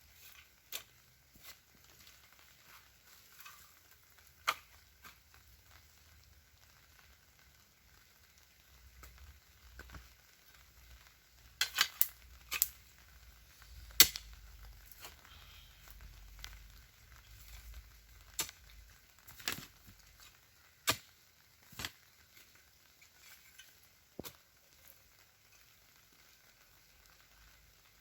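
Light rain falling with a faint hiss, and about a dozen sharp, irregular taps, the loudest clustered around twelve to fourteen seconds in.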